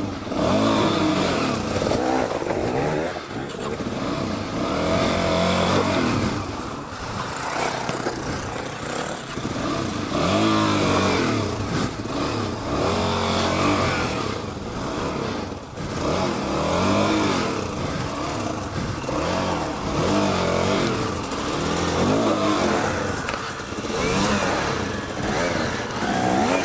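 Dual-sport motorcycle engines revving hard and repeatedly, the pitch climbing and dropping every second or two as the bikes are worked through deep mud.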